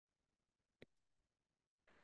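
Near silence, with one faint click a little under a second in.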